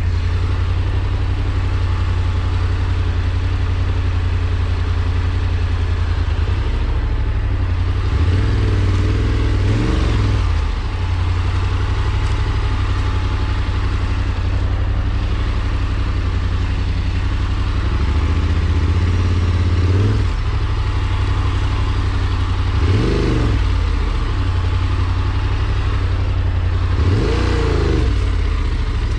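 Engine of an off-road farm machine running steadily under load, revving up and back down briefly four times.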